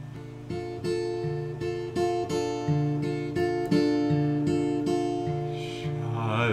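Acoustic guitar playing an introduction, with new notes picked a few times a second and ringing on. A man's singing voice comes in right at the end.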